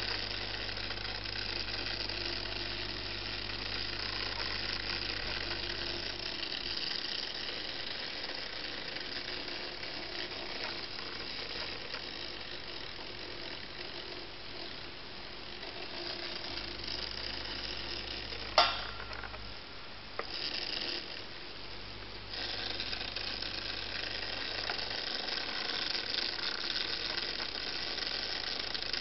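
Solar-powered toy locust's tiny motor buzzing, shaking the toy so its wire legs rattle on the wooden desk in a steady mechanical chatter. One sharp click about two-thirds of the way through.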